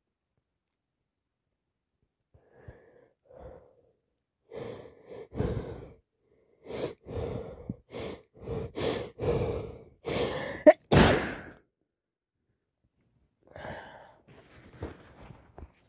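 A woman with a head cold builds up to a sneeze. A run of catching, gasping breaths comes faster and closer together, then one loud sneeze goes off about eleven seconds in. Quieter breaths follow near the end.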